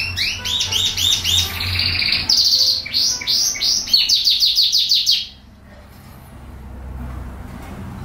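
Domestic canary singing a fast run of rapidly repeated notes that switches from one phrase to the next every second or so, then breaks off abruptly a little past five seconds in.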